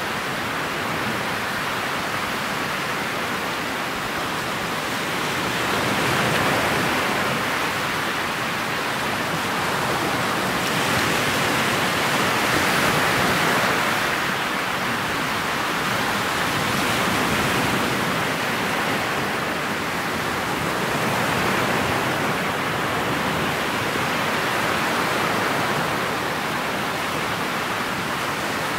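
Steady rushing noise of a motorboat under way: wind buffeting the microphone and water sweeping past the hull, swelling and easing every few seconds, with no engine note standing out.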